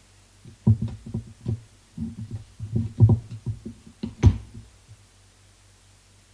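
A dozen or more dull knocks and thumps over about four seconds, loudest near the end, as the two halves of a powered wheelchair's split wheel rim are worked apart.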